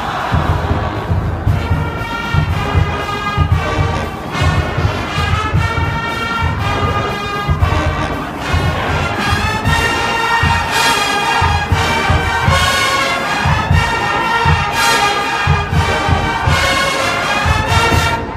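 A large marching band playing a brass tune, with a full section of sousaphones and a steady bass-drum beat under it.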